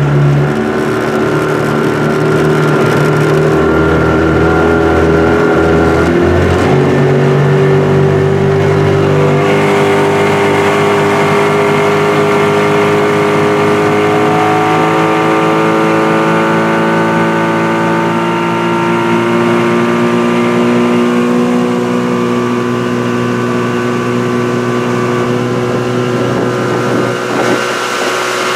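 Outboard motor pushing a small aluminium boat under way, running steadily at first. About a quarter of the way in its engine note starts to climb slowly and keeps climbing for much of the run, with the rush of water and wake behind it.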